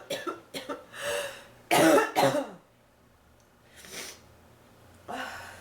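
A woman coughing from bronchitis: a run of short coughs at the start, a breath, then two loud coughs about two seconds in, and another weaker cough near the end.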